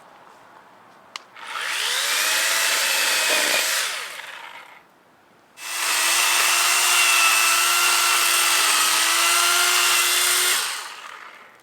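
Electric power tool run in two bursts: after a click, it spins up about a second and a half in, runs for about three seconds and winds down; then it starts again sharply and runs at a steady pitch for about five seconds before cutting off.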